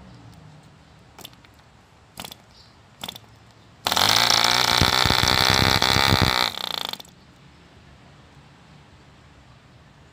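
1948 ED Mk II Competition 2 cc model diesel engine being hand-started: three short knocks as it is flicked over, then it fires and runs loud and fast for about two and a half seconds before dying away.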